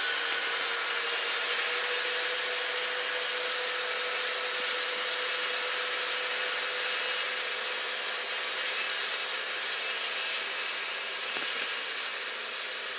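Tractor engine running steadily while pulling an umbilical-hose-fed slurry injector, a continuous mechanical hum with a steady whine through it. It grows a little fainter towards the end as the rig moves away.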